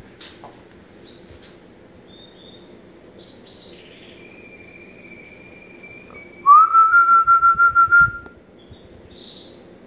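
Nestling bird begging while being hand-fed. Faint high chirps come first, then about six and a half seconds in a loud, rapid run of whistled peeps that rises at the start and then holds one pitch, about six a second, lasting roughly a second and a half.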